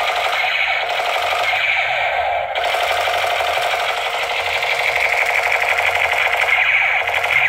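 Battery-powered toy Spider-Man AK-style rifle playing its electronic machine-gun sound effect through its small built-in speaker: a rapid, continuous rattle.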